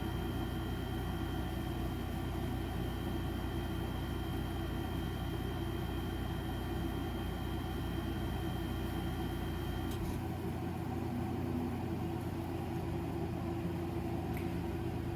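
Electric fan running with a steady hum. About ten seconds in, a faint high whine and the deepest part of the hum cut off, while the rest of the hum goes on.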